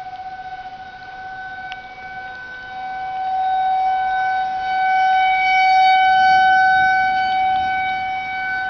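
Rotating outdoor tornado warning siren sounding one steady, unwavering tone. It swells in loudness over several seconds as the turning horn comes round toward the listener, peaking about two-thirds of the way in, then eases off slightly.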